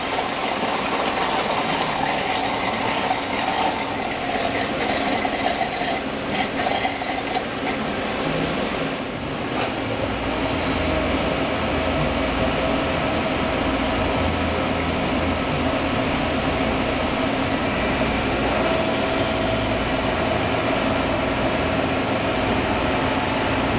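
Mitsubishi FX20 wire EDM with its water system running: a steady wash of water and machine hum. About ten seconds in there is a click, and a deeper pump hum joins after it.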